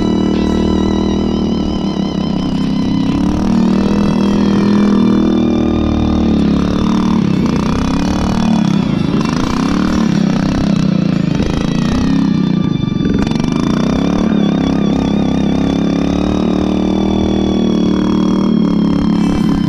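Rebuilt small engine of a home-built lawn tractor running hard under load in the snow, its revs rising and falling as it is throttled.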